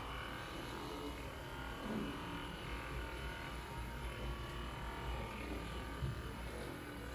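Hypervolt percussion massage gun running against the front of the thigh, a steady motor hum with no break.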